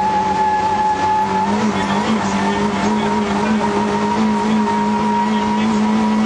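Rally car engine heard from inside the cabin, running steadily under load with a pitch that steps up slightly about a second and a half in, over road noise.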